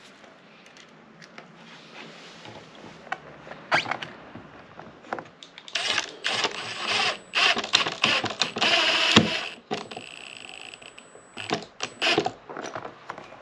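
Hard plastic boat dash panel and its metal mounting plate being handled and pressed into place on a wooden table: scattered knocks and clicks, with a stretch of scraping and rubbing from about six to nine seconds in.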